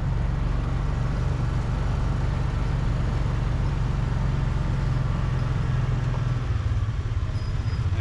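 A vehicle's engine running steadily while driving, a low drone that drops a little in pitch near the end.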